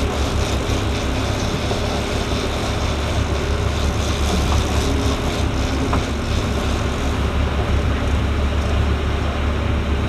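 Sportfishing boat's engine running steadily under way, a constant low drone, with rushing water from the wake over it.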